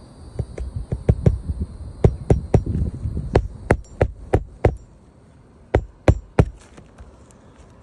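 Hammer driving roofing nails into asphalt shingles: a run of sharp strikes, about three a second, then a short pause and three more strikes near the end.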